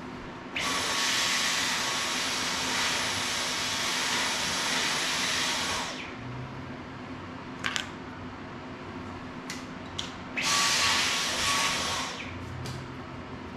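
Cordless stick vacuum switched on and running steadily for about five seconds, then run again for about two seconds near the end, cutting off sharply each time, with a few light clicks in between.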